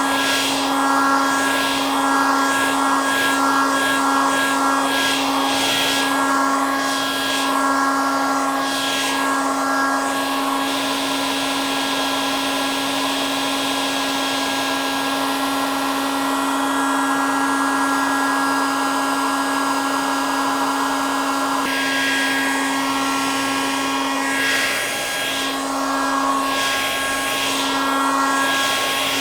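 Hair dryer running steadily: a constant motor hum under a rushing blast of air. For the first ten seconds and again near the end the rush wavers, swelling and fading every second or two.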